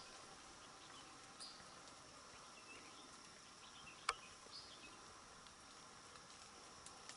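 Faint steady drone of forest insects, with a few faint high chirps and one sharp click about four seconds in.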